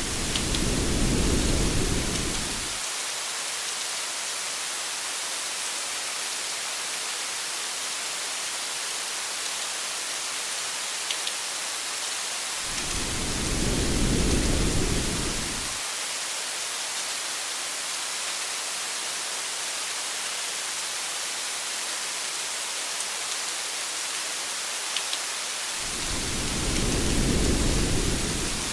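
Steady rain hiss with low rolls of thunder, three of them about 13 seconds apart, each swelling and fading over about three seconds.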